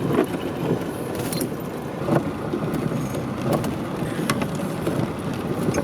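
Vehicle running with a steady low rumble, with scattered light clicks and ticks over it.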